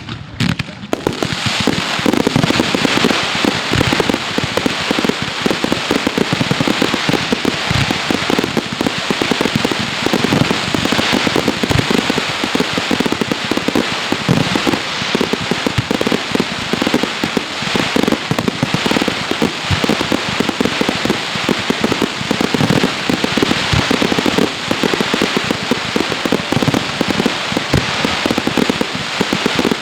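Fireworks crackling: a dense, unbroken run of rapid small pops and bangs that starts about a second in and keeps going at a steady, loud level.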